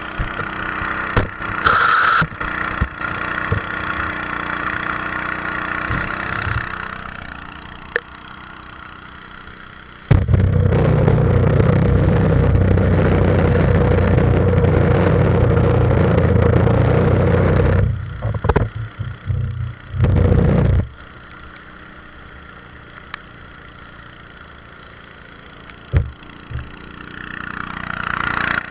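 The small engine of a motorized wooden longboat runs steadily at speed on a river, with spray splashing over the bow. For about eight seconds in the middle, loud buffeting of wind and spray on the microphone drowns the engine out, and a few shorter gusts follow. The engine's whine comes back near the end.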